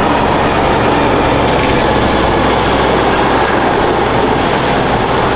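Loaded car-transporter truck driving past: a steady, loud mix of diesel engine drone and tyre and road noise.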